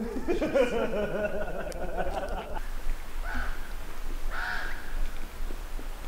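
Bird calls: a longer wavering call in the first couple of seconds, then two short calls about a second apart.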